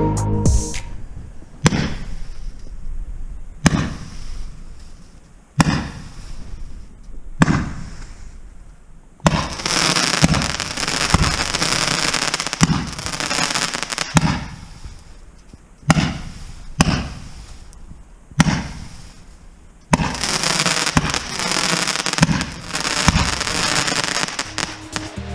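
Weco Elysium consumer fireworks battery firing. It gives single shots with sharp bangs about every two seconds, then about five seconds of dense crackling. More single shots follow, then a second stretch of dense crackling near the end.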